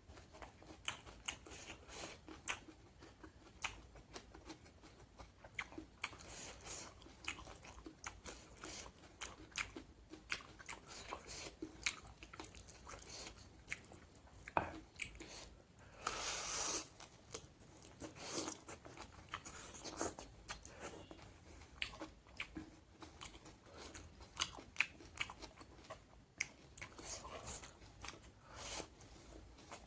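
A person eating close to the microphone: steady chewing and biting with many short crunches and clicks.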